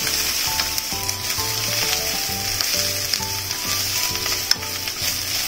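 Yakisoba noodles and cabbage sizzling in an oiled frying pan while being stirred and tossed with chopsticks, with light clicks of the chopsticks against the pan and one sharper click a little after four seconds in. Background music with short plucked-sounding notes and a steady beat plays underneath.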